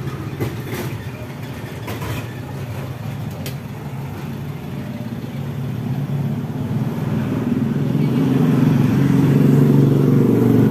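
A motor vehicle engine running steadily, growing louder over a few seconds in the second half and then holding. A few light clicks come early.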